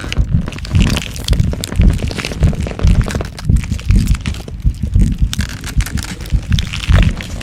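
Growth-transformation sound effect: dense crackling and crunching over a low, uneven pulsing rumble.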